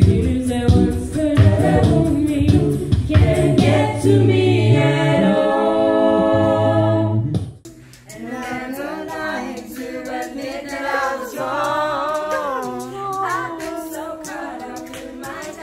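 A cappella group singing in harmony over a deep bass line, with sharp percussive clicks. About halfway through it cuts off abruptly and a quieter vocal performance with a smooth, gliding melody begins.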